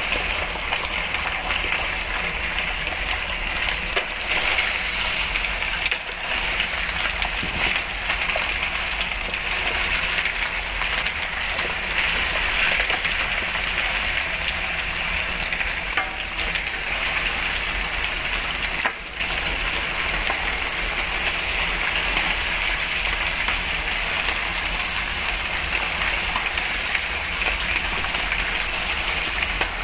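Frozen bitter gourd slices with onion and green chillies sizzling steadily in hot oil in a pan, a dense hiss dotted with small crackles.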